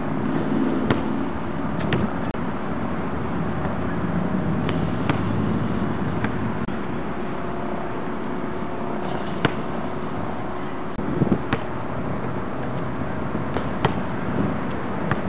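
Basketball hitting a concrete court and a hoop as it is dribbled and dunked: scattered sharp knocks every second or few, a quick cluster about two thirds of the way in, over a steady background hiss.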